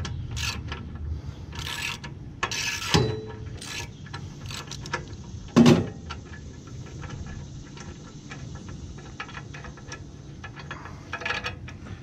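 Hand ratchet clicking in short runs as a spark plug socket unscrews a spark plug from a small engine. There is a sharp metal knock about three seconds in and a louder one just before six seconds.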